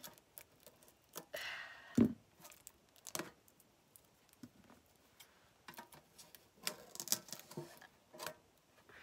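Scissors snipping and scraping at the plastic shrink-wrap on a metal trading-card tin, with crinkling of the plastic and small irregular clicks. A louder knock comes about two seconds in.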